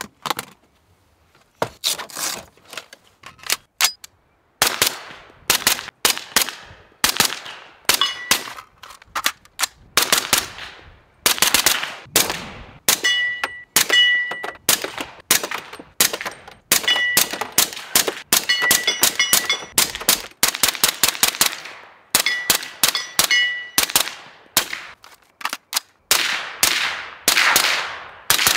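Suppressed rifle fire from an FDE SIG Spear LT fitted with a Peak 30 silencer: strings of rapid shots starting about two seconds in, some of them followed by a short metallic ring.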